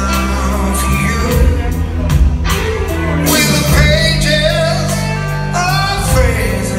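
Live rock band playing, with electric guitars and drums under a male voice singing, recorded from the audience in a large hall.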